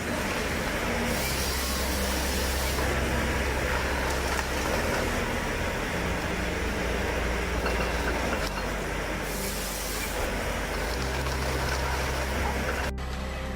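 Heavy machinery running: a steady engine drone under dense mechanical noise, changing character a few times and switching abruptly near the end.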